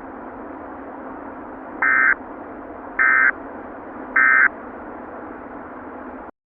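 Emergency Alert System end-of-message signal: three short bursts of SAME digital data tones, about a second apart, over a steady hiss. The hiss cuts off suddenly near the end.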